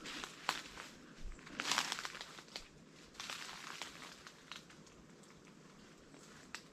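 Footsteps crunching and crackling through dry leaves and undergrowth, irregular and busiest in the first couple of seconds, then quieter.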